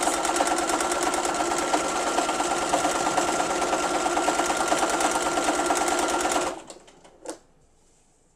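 Home sewing machine free-motion stitching (thread painting through fabric and paper), running at a fast, even stitch rate. It stops about six and a half seconds in, followed by a single click.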